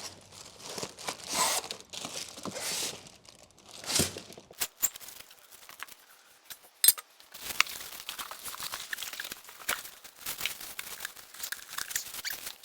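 Packaging being handled: wrapping crinkling and rustling, with scattered knocks, a thump about four seconds in and a sharp click about seven seconds in.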